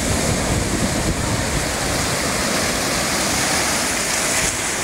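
Small waves breaking and washing over the shallows: a steady rush of surf.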